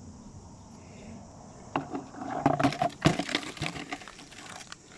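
Beach stones and shells knocking and crunching in an irregular run of sharp clatters, starting a little under two seconds in and loudest about three seconds in.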